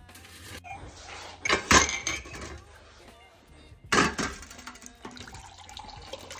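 Ceramic mugs clattering against a steel tray, two loud knocks about two seconds apart. After them, tea runs from a tea urn's tap into a mug.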